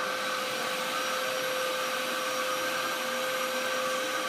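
Dyson upright vacuum cleaner running steadily: a constant whine over the rush of its airflow.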